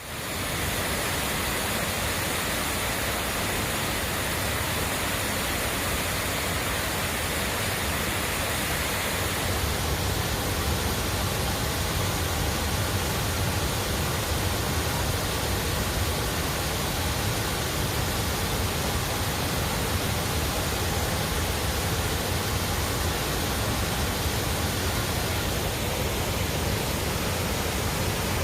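Great Falls of the Passaic River: a large waterfall's steady roar of falling water, a dense continuous rush with no breaks.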